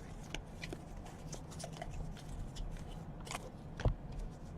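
Faint clicks and light rustling of trading cards being handled and flipped, with a sharper click about four seconds in.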